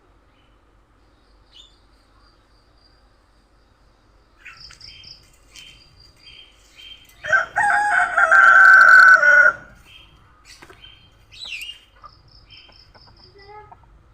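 A rooster crows once, one long crow of about two and a half seconds midway through. Short high chirps repeat faintly before and after it.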